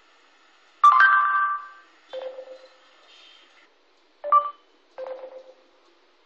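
Google voice search prompt tones played from phone and laptop speakers: a bright chime about a second in, a lower tone a second later, then a short two-note beep just past four seconds and another low tone about a second after it. These are the cues that voice search has started or stopped listening.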